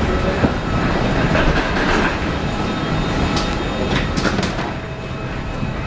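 Steady rumble and hiss of an Airbus A320 standing at the gate, its air-conditioning fed by the auxiliary power unit, heard at the boarding door, with a few sharp clicks partway through.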